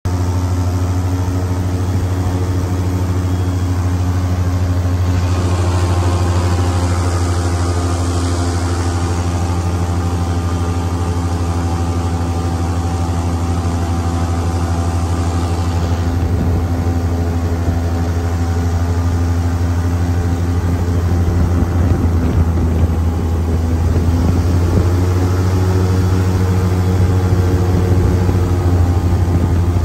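Airboat engine and air propeller running steadily under way: a loud, deep drone. A hiss joins for about ten seconds in the middle, and the engine pitch shifts a little in the later seconds as the throttle changes.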